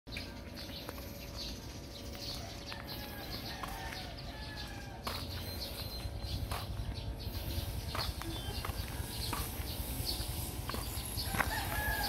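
Birds calling in short bursts over a low steady rumble, with scattered clicks; the background gets louder about five seconds in.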